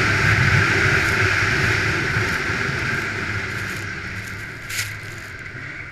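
Snowmobile engine running under way, heard from the handlebars, gradually getting quieter. There is a single short knock a little before the end.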